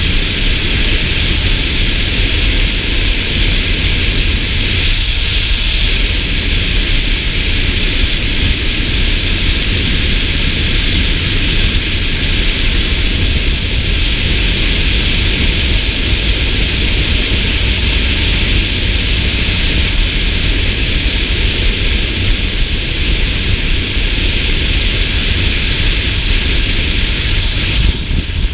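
Steady rush of wind over the microphone of a camera riding on a moving motorbike, with heavy low buffeting and road noise underneath.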